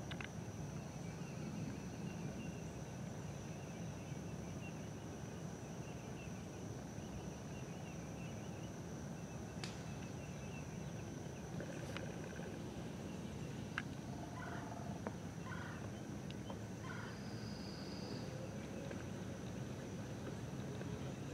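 Outdoor ambience with a steady high-pitched whine and chirping, and a single sharp click about ten seconds in as a golf club strikes the ball on a full swing. A few short bird calls follow.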